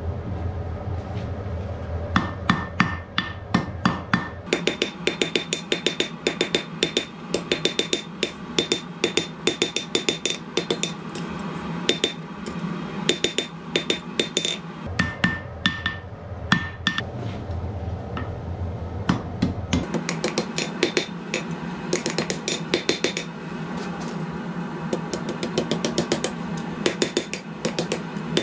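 Hand hammer forging a red-hot piece of reinforcement bar on a steel anvil: quick runs of ringing blows, a few a second, with short pauses between runs. A low hum sits under some stretches.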